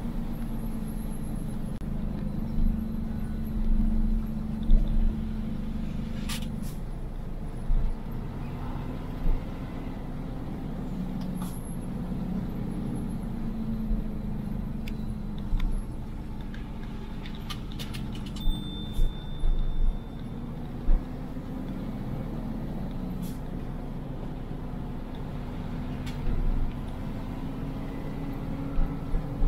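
Road vehicle's engine running steadily on a downhill mountain road, its hum sagging and rising in pitch, with scattered knocks and rattles. A brief high squeal about two-thirds of the way through.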